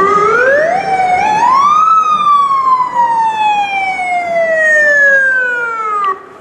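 Ambulance siren sounding one long wail: the pitch rises quickly over about two seconds, then falls slowly for about four seconds and cuts off suddenly near the end.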